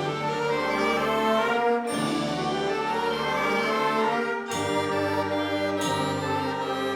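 High school band playing a Christmas piece: brass-led sustained chords over changing bass notes.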